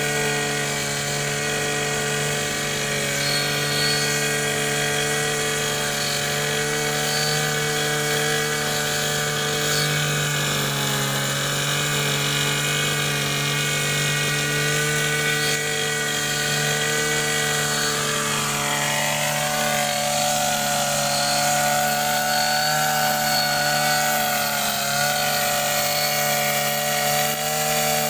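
Petrol brush cutter engine running steadily at high revs while trimming grass. The revs dip briefly about ten seconds in and sag and recover again near the two-thirds mark.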